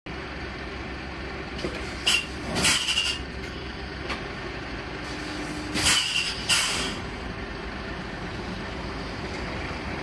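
Heavy trailer truck's steady running rumble, with four short, loud hisses of released air, about two, three, six and six and a half seconds in, typical of a truck's air brakes.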